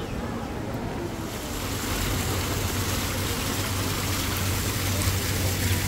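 Small fountain's water jets splashing into their basin: a steady rushing hiss that grows louder about a second and a half in, with a low steady hum underneath.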